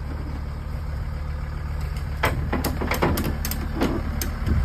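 A vehicle engine idling steadily with a low hum, with a run of sharp clicks and knocks starting about halfway through.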